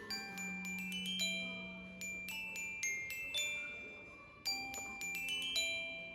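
Background music: a light melody of bell-like glockenspiel notes, struck several times a second and ringing out, over a held low note.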